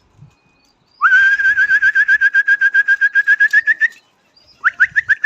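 A pigeon keeper's loud trilled whistle, blown twice: each trill starts with an upward swoop, then warbles rapidly at about eight pulses a second on a high, nearly steady pitch. The first lasts about three seconds from a second in, and the second starts near the end.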